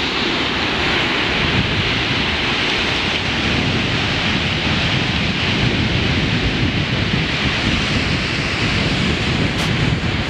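Ocean surf breaking and washing in, with wind buffeting the microphone in a steady low rumble.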